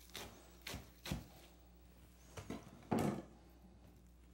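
A few knocks of a knife on a wooden cutting board as a pita-crust pizzette is cut and handled. The loudest knock comes about three seconds in.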